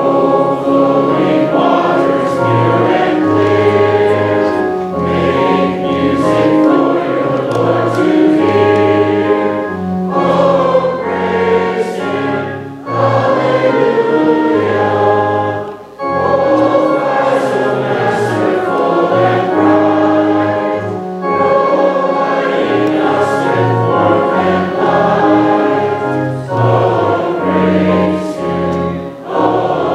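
A congregation singing a hymn together with organ accompaniment, the voices breaking briefly between phrases.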